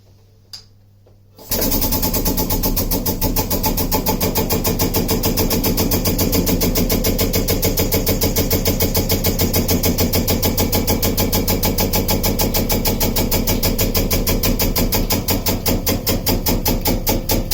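The motor of a dimple press starts up about a second and a half in and runs steadily with a fast, even pulsing as the press sinks a note dimple into a steel handpan shell.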